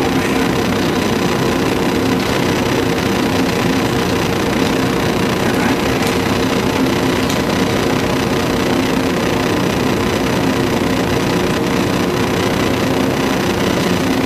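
Steady hum and hiss of room noise with a few held low tones, no clear events standing out.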